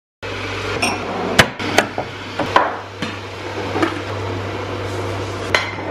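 A handful of sharp knocks and clatters, about five spread over a few seconds, as a large empty plastic water bottle is handled at a wooden cabinet, over a steady low hum.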